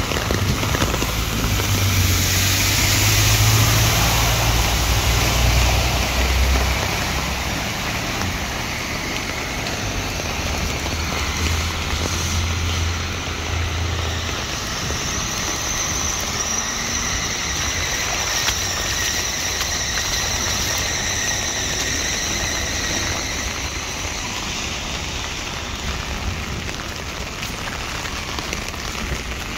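Steady rain on a flooded street while vehicles drive through the standing water, spraying it aside. Their engines rumble low during the first several seconds and again about ten to fourteen seconds in.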